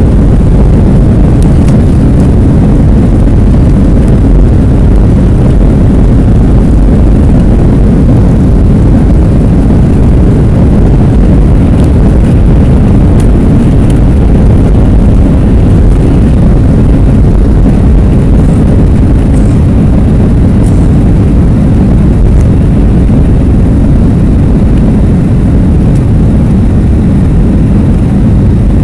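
Boeing 737 jet engines at takeoff power, a loud, steady, deep roar heard from a cabin seat over the wing through the takeoff run and into the climb.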